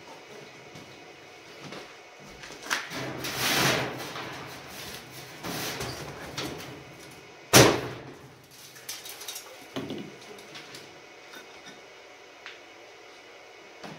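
Sheet-metal casing of a steel wood stove being handled and pushed on: scraping and clattering, with one sharp metal bang a little past halfway, the loudest sound.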